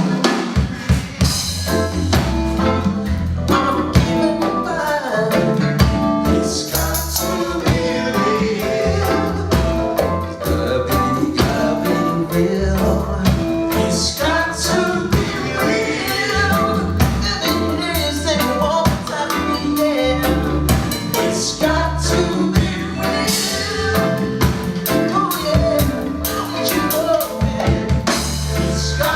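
Live jazz-funk band playing a song, with drum kit, bass and singing.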